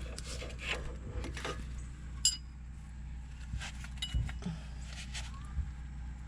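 Metal hand tools and small steel parts clicking and clinking against each other while a suspension part is being unbolted by hand, with one sharper, briefly ringing clink about two seconds in.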